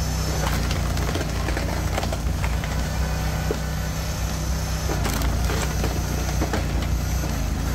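Firewood processor's 22-horsepower Honda engine running steadily while the hydraulic ram forces a log through the splitting wedge; the wood cracks and splinters, and split pieces clatter onto the conveyor in scattered knocks.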